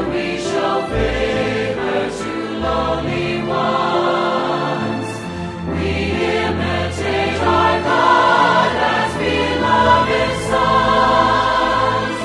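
Music with a choir singing sustained lines.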